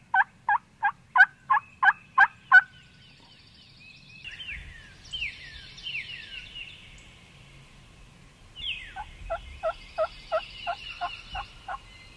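Wild turkey yelping: two runs of about nine evenly spaced yelps, roughly three a second, one at the start and one about nine seconds in. Fainter high, downward-slurred songbird whistles come in between.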